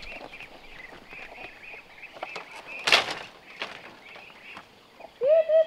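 A woven bamboo gate knocks shut once, about three seconds in, over steady high-pitched chirping. Near the end a duck starts a fast, evenly spaced run of quacks.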